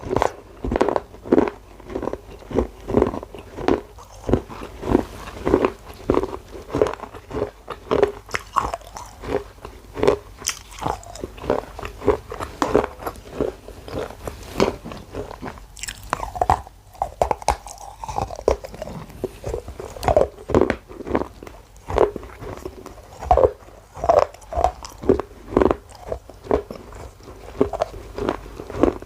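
Close-up eating of baked clay pot pieces: repeated sharp crunching bites and chewing, about one to two crunches a second.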